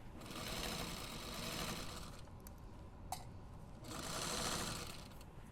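Sewing machine stitching a zipper seam through the bag layers. It runs for about two seconds, stops, and starts again for about a second near the end. A single sharp click comes in the pause.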